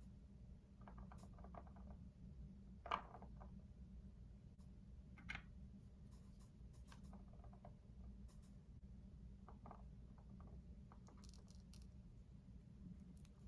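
Faint light taps and clicks of small miniature kitchen items being handled, with a sharper click about three seconds in and another just after five seconds, over a low steady hum.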